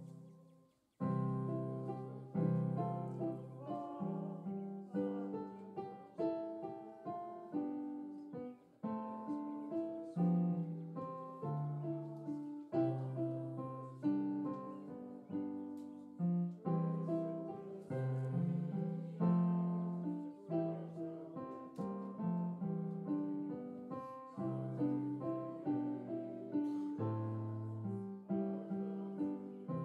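Slow instrumental piano music played on a Yamaha MO8 keyboard in a piano voice: chords and melody notes, each fading after it is struck, starting about a second in.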